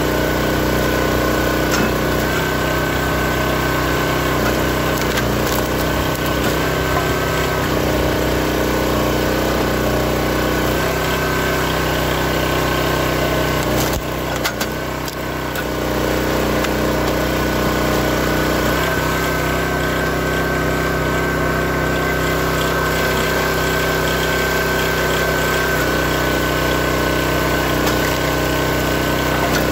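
Built-Rite hydraulic log splitter's small gas engine running steadily under load, with a steady high whine above it, while the ram pushes logs through the wedge. There are occasional knocks of wood splitting and falling, and the sound dips briefly about halfway through.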